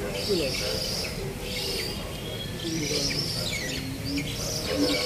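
Many aviary birds calling together: repeated shrill chattering and chirping calls, with a few lower, drawn-out notes, the clearest near the end.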